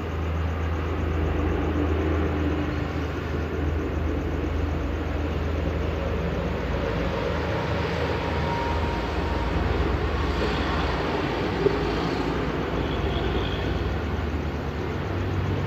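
Steady rumble of passing traffic on a toll road, with a low hum underneath, swelling slightly about ten seconds in.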